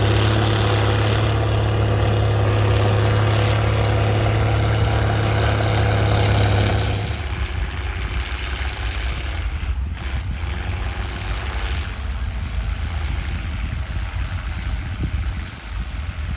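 Straight-piped Case IH 1056XL tractor's six-cylinder diesel running loud and steady while ploughing. About seven seconds in the sound drops sharply to a quieter, rougher rumble with no steady note.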